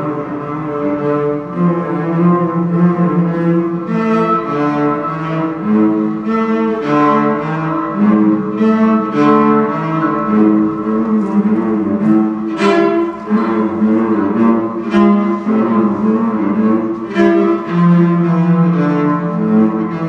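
Cello played with the bow: a continuous line of held notes shifting in pitch every half second to a second, with a few sharp accents, the strongest about two-thirds of the way through.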